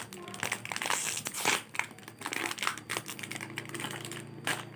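Foil-laminated biscuit sachet crinkling and crackling as it is torn open by hand. The crackle is densest in the first couple of seconds, then thins out, with one sharp crack near the end.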